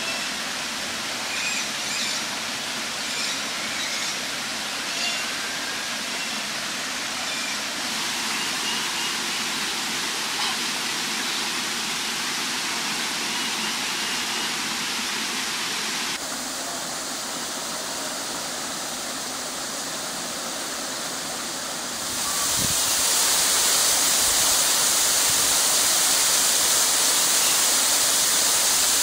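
Steady rushing of falling water, with short faint chirps in the first several seconds. About three-quarters of the way through it jumps to the much louder, fuller rush of a waterfall.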